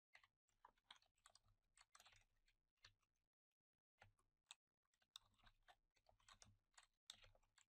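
Faint computer keyboard typing: scattered single key clicks, pausing briefly a little after three seconds in.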